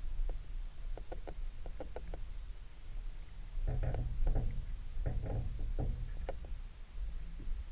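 Underwater sound picked up by a submerged camera under a dock: a steady low rumble of water moving against it, with irregular short clicks and knocks that come in two clusters, about a second in and again through the middle.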